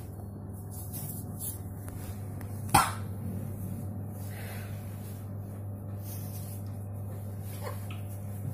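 A person coughs once, short and sharp, a little under three seconds in, over a steady low hum.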